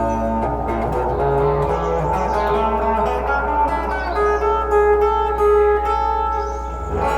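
Electric guitar played through a decades-old effects pedal that is being tested: picked notes and chords ringing one after another, over a steady low hum.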